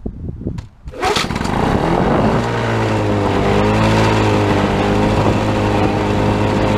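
1979 Lawnboy 5247 mower's OMC F-100 two-stroke engine catching about a second in after a few clicks, then settling into a steady run whose pitch wavers briefly before holding even.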